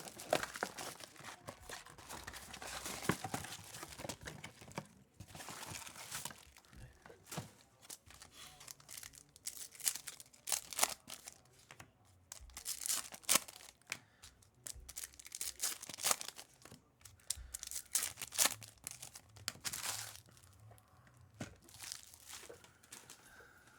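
Trading card packs being ripped open, the wrappers tearing and crinkling in irregular bursts.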